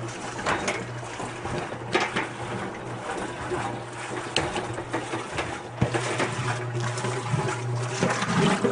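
Old Kenmore wringer washing machine running, its motor humming steadily while water is pumped back up and splashes down through the lid's lint catcher into the tub, with a few sharper splashes along the way.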